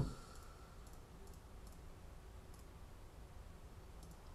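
Computer mouse clicking a few times over faint room noise, the first click at the very start the sharpest.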